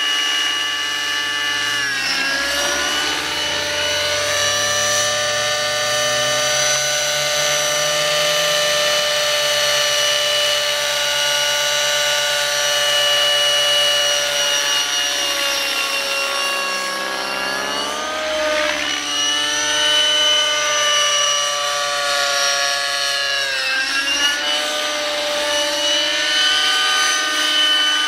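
Glow-fuel (nitro) engine and rotors of a radio-controlled helicopter running at high revs in flight. The pitch drops and climbs back several times as it manoeuvres.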